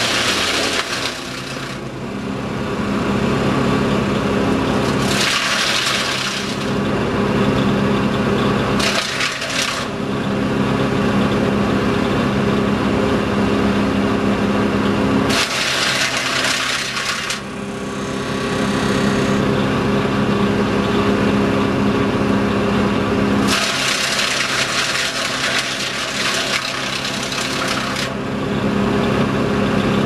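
Wood chipper with a 13 HP Honda petrol engine running steadily, with loud bursts of shredding and rattling each time conifer branches are fed in and chipped: about five bursts, the longest lasting several seconds near the end.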